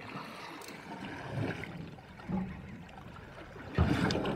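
Sea water lapping and splashing against the side of a small boat, with a louder slap near the end.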